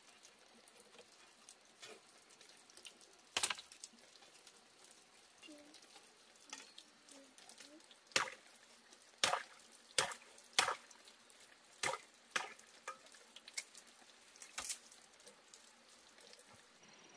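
A series of sharp cracks or knocks at uneven spacing over a faint background hiss: one on its own early, then a cluster of about eight through the middle of the stretch.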